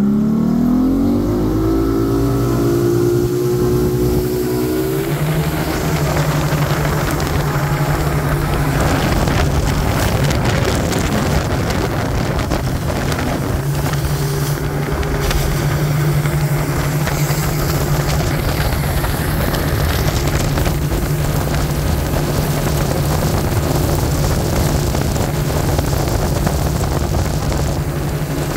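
Towboat engine accelerating hard, its pitch rising for the first four or five seconds as it powers up to towing speed, then running steadily at speed. Rushing water spray and wind noise run under it.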